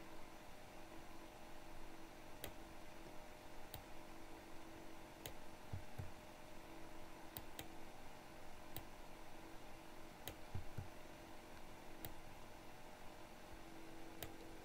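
Computer mouse clicking, about nine sharp clicks spaced a second or two apart, with a couple of soft low knocks, over a faint steady electrical hum.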